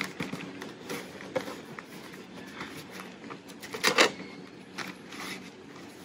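Brown paper lunch bags rustling and crinkling as a stack of them is folded in half and the crease pressed flat by hand, with one louder crackle of paper about four seconds in.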